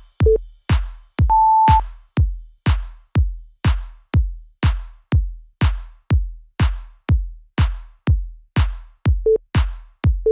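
Electronic dance music stripped down to a steady kick-drum beat, about two hits a second, with a short held synth note about a second in and a few brief blips.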